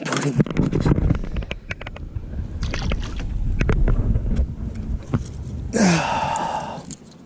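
Clicks and knocks of fishing gear and feet against an aluminum boat hull, over a low rumble of wind on the microphone. About six seconds in, a brief rush of noise starts with a short rising tone.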